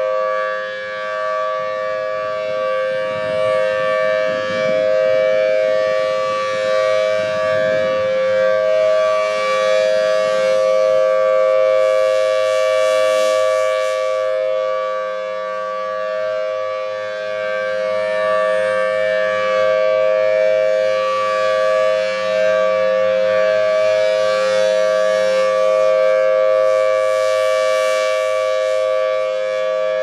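Federal Signal Thunderbolt 1000T outdoor warning siren sounding its steady full-alert tone, a loud held chord of two close notes. It grows louder and brighter about every fifteen seconds as the rotating horn comes around.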